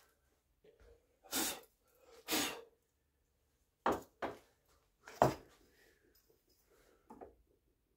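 Two short puffs of breath, then a few sharp knocks on the workbench, the third the loudest, and a softer one near the end, as the wooden rifle stock and tools are handled.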